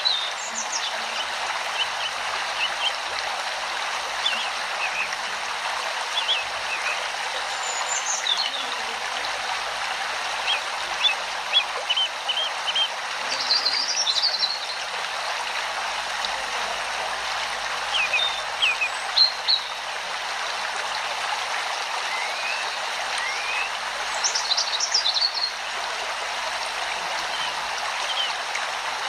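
A steady rushing noise like a flowing stream, with short high bird chirps scattered through it, a few in quick clusters.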